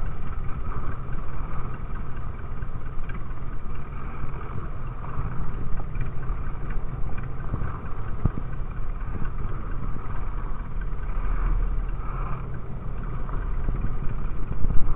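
Fishing boat's engine running steadily under way, with water rushing along the hull.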